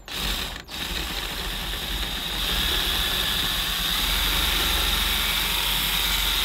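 Cordless drill running, enlarging pilot holes so wires can pass through. It starts and stops briefly in the first second, then runs steadily and gets louder from about two and a half seconds in.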